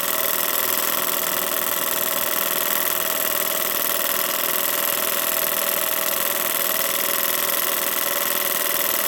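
Early Stuart Star model steam engine running steadily on steam from a Stuart 495 twin-drum boiler, with an even hiss; a freshly rebuilt engine on its first test, running smoothly.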